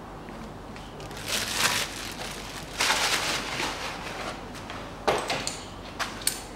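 Scraping and rustling handling noise as the plastic air-filter housing lid is pressed shut by gloved hands, in two spells, followed by a few sharp clicks near the end.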